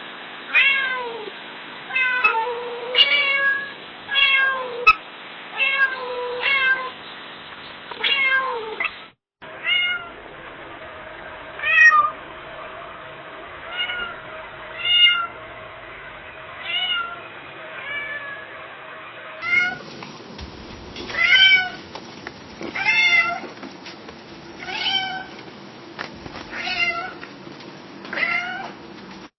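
Domestic cats meowing over and over in three separate recordings joined with abrupt cuts: short meows about one a second in the first, then meows spaced about a second and a half apart in the next two. A steady hiss sits under each recording, with a faint steady hum in the middle one.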